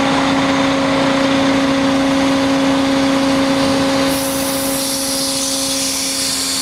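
Kato HD 1430 excavator's engine and hydraulic pump running steadily at economy throttle with a constant humming whine, pushing oil through a hydraulic flow tester during a flow test for the breaker line. About four seconds in, a high hiss joins in and the level dips slightly.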